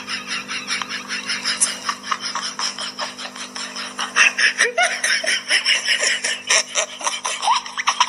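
A person laughing hard in quick, repeated bursts over a steady low hum.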